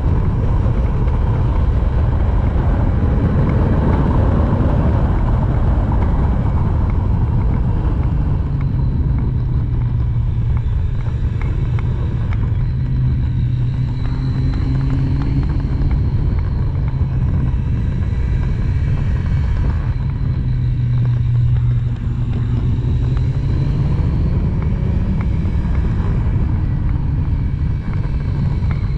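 Triumph Street Triple's three-cylinder engine running hard up a twisty road, its pitch rising and falling with the throttle through the bends, under heavy wind noise.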